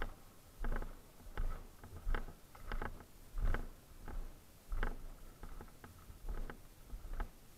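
Footsteps in snow, a step about every three-quarters of a second at an even walking pace.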